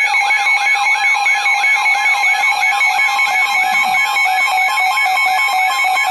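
Weather radio's electronic alert alarm sounding for a severe thunderstorm warning: a sweeping tone repeating about four times a second over steady tones.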